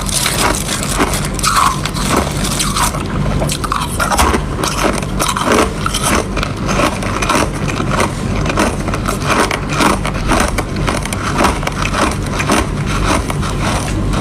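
Ice being bitten and crunched in the mouth: a dense, unbroken run of crunches and crackles.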